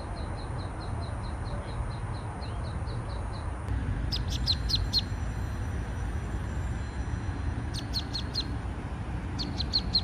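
Ducklings peeping: a steady run of evenly spaced peeps, about three a second, that stops a little over a third of the way in, then several quick clusters of sharper peeps, over a steady low rumble.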